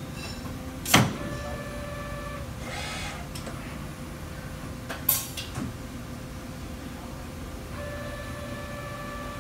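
Okuma MCV-AII double-column vertical machining center running with a steady hum, with two sharp clicks about a second and about five seconds in. A steady whine from the axis drive comes in briefly after the first click and again near the end as the spindle head is moved.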